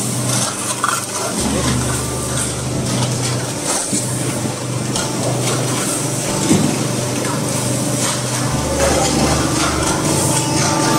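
Electric pan mixer and belt conveyor of a concrete-block line running together, a steady machine hum under the churning of damp sand-cement mix.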